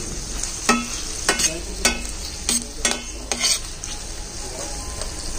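A metal spoon scrapes and knocks against a pan while stirring onion, tuna and green beans that are frying, with a steady sizzle underneath. The strokes come at an irregular pace, about eight of them, and stop about three and a half seconds in, leaving only the sizzle.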